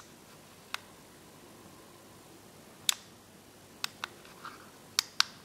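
Push-buttons on a small plastic Equiteacher wireless receiver clicking as they are pressed: six short, sharp clicks at uneven gaps, with two quick pairs in the second half.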